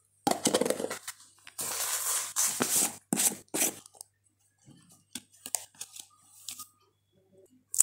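Three short rustling, scraping bursts of kitchen handling noise as spice paste is added to raw beef, followed by a few faint clicks.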